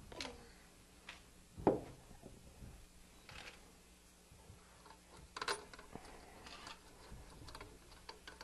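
Faint, scattered small clicks and taps of metal engine parts being handled as a thread-locker-coated connecting rod bolt is set in by hand in a small go-kart engine, with one sharper knock about a second and a half in.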